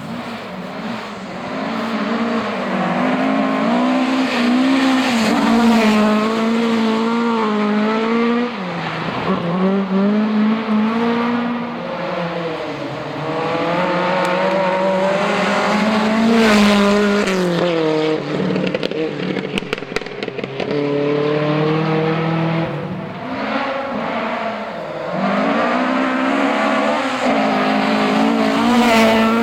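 Historic rally cars going through a special stage, engines revving hard and falling away between gear changes and corners, pitch repeatedly climbing and dropping as the cars go by.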